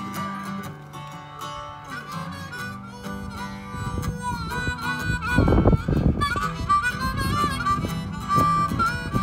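Harmonica solo, the player's hands cupped around the microphone, over strummed acoustic guitar; the harp comes up strongly about halfway through with bent notes. A low rumble sounds briefly around the middle.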